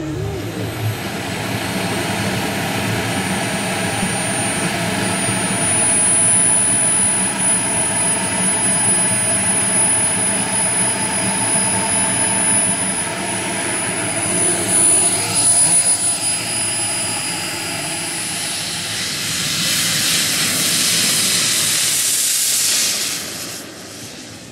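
Small turbine engine of an RC Jet Legend CT-114 Tutor model jet running: a steady high-pitched whine over a rushing noise. The rush grows louder about three-quarters of the way through, then falls away sharply near the end.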